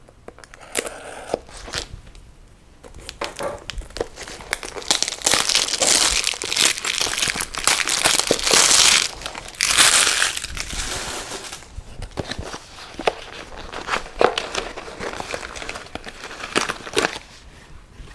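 A clear plastic packaging bag crinkling as it is handled and pulled from a cardboard box, loudest in the middle. Before and after come scattered clicks and rustles of the box being opened and handled.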